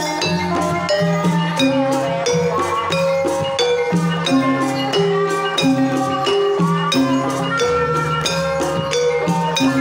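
Banyumasan gamelan playing a tayub gending: bronze metallophones and kettle gongs ring a steady, even melody over sharp kendang drum strokes. A female sinden sings along into a microphone.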